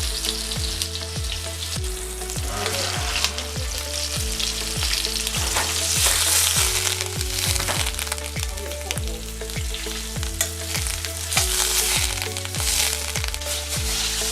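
Chicken frying in hot grease: a steady sizzle with small pops and crackles throughout. Under it runs background music with a deep, repeating bass beat.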